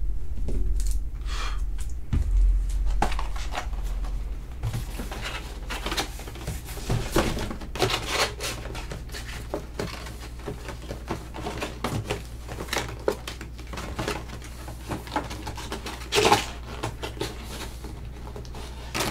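Irregular clicks, taps and rustling of hands handling trading-card boxes and packaging, over a steady low hum that is strongest in the first few seconds.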